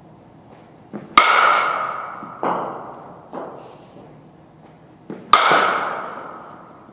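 Two softball bat hits about four seconds apart, each a sharp crack with a ringing ping that fades over a second or so, and a duller thud shortly after the first hit.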